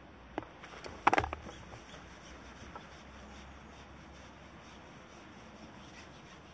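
Handling noise from fishing tackle on a seatbox side tray: a sharp click, then about a second in a short clatter of hard knocks, followed by a few faint ticks.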